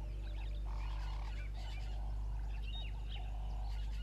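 Several wild birds chirping and whistling, short overlapping calls throughout, over a steady low hum.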